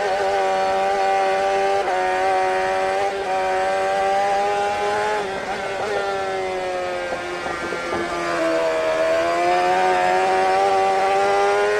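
Engine running at a steady speed, its pitch dipping slightly about eight seconds in and then rising again.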